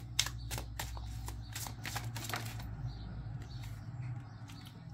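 Tarot cards being shuffled by hand: a quick run of crisp card snaps through the first couple of seconds, then quieter rustling with only an occasional flick.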